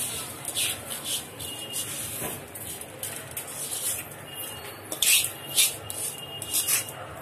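Rice being tipped and pushed off a steel plate into a steel cooking pot, with a run of short, sharp scrapes of metal on metal. The loudest scrapes come about five seconds in and again near the end.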